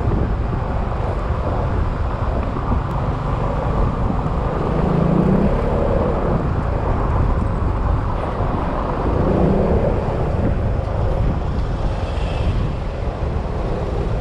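Yamaha XMAX scooter being ridden on the road: engine running with wind and road noise on the microphone, a steady low rumble that swells briefly twice, about five and nine seconds in.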